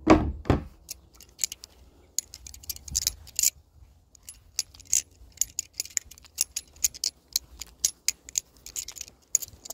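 Balisong (butterfly knife) being flipped: quick, irregular metallic clicks and clacks of the handles swinging against each other and the blade, several a second. A short low thud comes right at the start.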